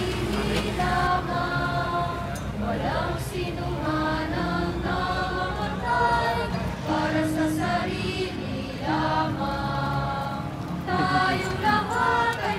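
A group of voices singing a slow hymn, with long held notes that slide into one another.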